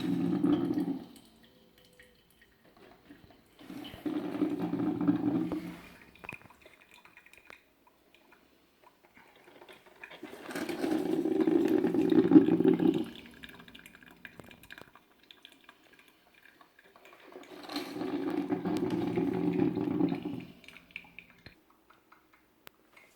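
Silvercrest SKML 1000 A1 drip coffee maker brewing: its heating element boils the water and pushes it out in spurts, heard as four bursts of bubbling water a few seconds long, about six seconds apart.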